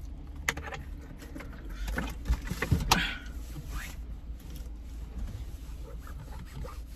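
Paper tissues rustling and crinkling as they are handled, with sharp crackles about half a second and three seconds in, over a steady low hum.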